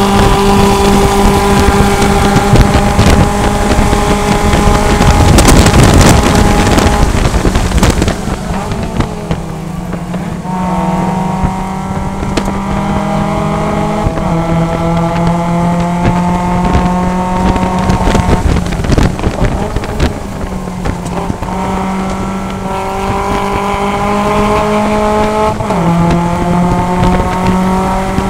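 Mazda MX-5 Cup race car's 2.0-litre four-cylinder engine heard from inside the cockpit, held high near 6,000 rpm, then easing off under a loud rush of noise about six to eight seconds in as the car slows for a corner. It then accelerates hard, the pitch climbing and dropping sharply at each of several upshifts.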